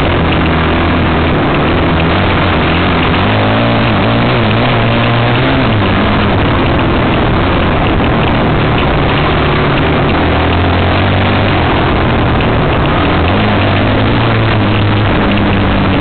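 Enduro dirt bike engine running under load on a dirt trail, its pitch rising and falling with the throttle, over a dense rushing noise from wind and rough ground on the bike-mounted camera.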